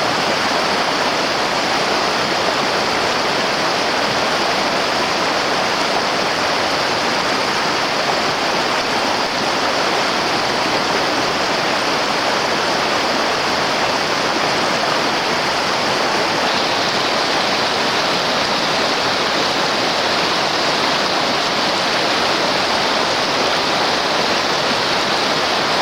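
Rushing river water: a steady, even rush of flowing current over rocks.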